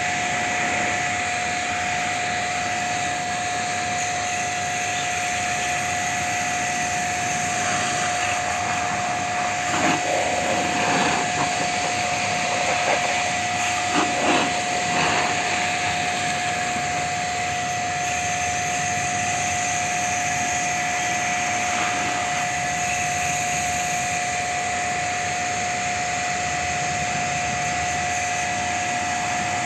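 Small electric pressure washer running with a steady whine while its water jet hisses against an AC condenser's coil fins and metal base pan, cleaning the coil. The spray gets louder and more splashy for moments about a third and halfway through.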